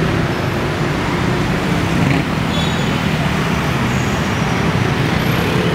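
Dense city street traffic: cars, taxis and motorbikes running and passing close by, a steady, loud wash of engine and tyre noise.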